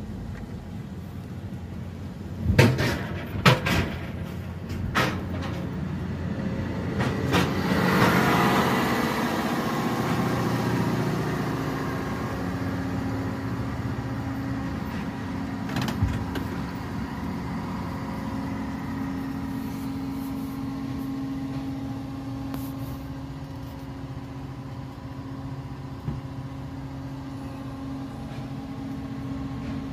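Car tyres thumping a few times over the joints of a steel ferry loading ramp, heard from inside the car. A swell of vehicle noise follows, then a steady engine hum.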